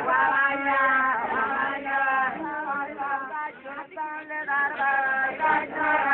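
A group of men and women chanting a song together in long held notes, phrase after phrase with brief breaks: the sung accompaniment of the Arfak dance.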